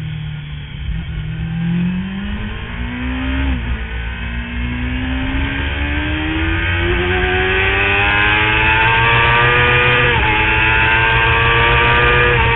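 Motorcycle engine on a track lap, heard from on board with wind rushing over the microphone: the revs fall as the bike leans through a corner, then climb hard through the gears, with upshifts about 3.5 and 10 seconds in and another near the end.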